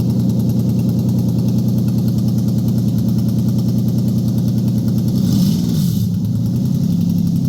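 Toyota 1GZ-FE V12 engine idling steadily. A short hiss sounds about five seconds in.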